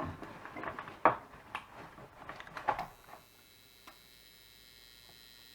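A few handling clicks, then about three seconds in the switch-mode power supply of a ZIG X-70 caravan battery charger starts a faint, steady high-pitched buzz made of several held tones. The buzz is a sign that the charger is still faulty.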